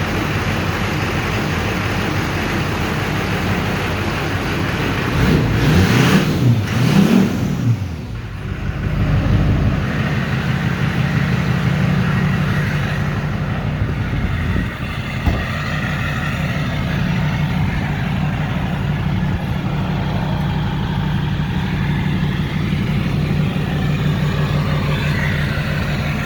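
Duramax turbodiesel engine running, revving up for a few seconds about five seconds in, then dropping back to a steady idle. The owner puts the missing boost and white smoke down to a bad turbo.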